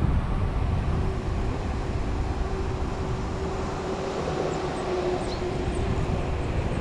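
Wind rumbling on the microphone, with a faint steady hum through the middle and a few short, high bird chirps near the end.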